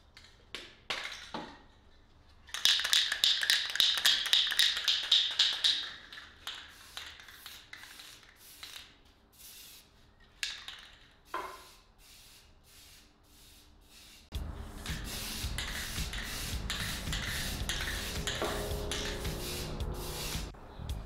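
Aerosol spray-paint can shaken hard for about three seconds, its mixing ball rattling rapidly, then a few taps and clicks. About two-thirds through, a steady spray hiss starts as the paint is sprayed onto the chair.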